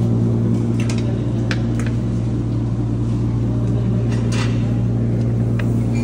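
A loud, steady low machine hum, with a few short light clinks of metal serving tongs on buffet dishes scattered through it.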